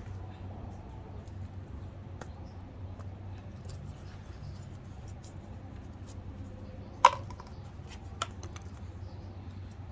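Light scraping and rustling of hands scooping dry, decayed alfalfa soil out of a plastic bucket and filling small coffee cups. A sharp click comes about seven seconds in and a lighter one a second later, over a steady low hum.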